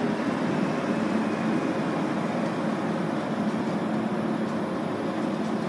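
Steady hum and rumble of a Montreal metro Azur train, heard from inside the car.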